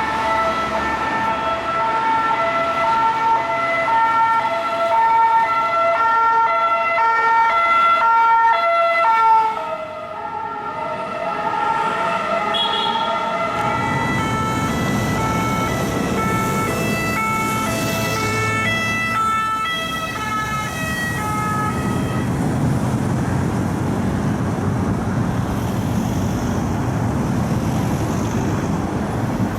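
French two-tone ambulance siren sounding, stepping back and forth between two notes, with a steady high tone alongside. Engine and road-traffic rumble comes up about halfway. The siren fades out some seven seconds before the end, leaving traffic noise.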